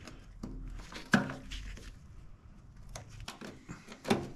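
Scattered sharp metal clicks and light scrapes of snap-ring pliers working the retaining snap ring on the fuel pump module in the top of the fuel tank, the loudest click about a second in.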